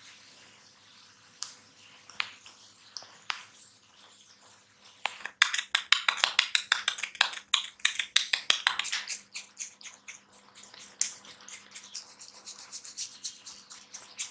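Close-miked crackling and scratching from a barber working on a person's head: scattered sharp clicks, then about four seconds of dense, rapid crackles, then sparser clicks again.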